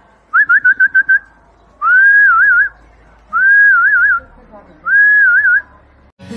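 A person whistling to catch a Tibetan mastiff puppy's attention: a quick run of about six short chirps, then three longer whistles, each rising, holding and ending in a warble.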